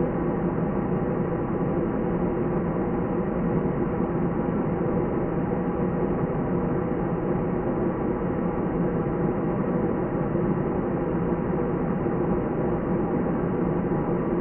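Steady cabin noise inside an airliner in flight: an even rush of engine and airflow noise with a low hum, unchanging throughout.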